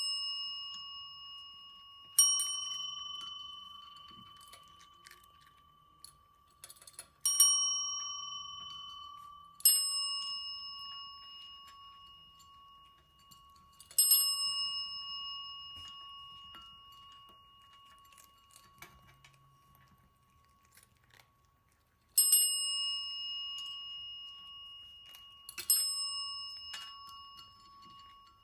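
Small metal bell rung about seven times at uneven intervals, each clear ring fading away over several seconds. The bell is the signal to the cats that food is coming.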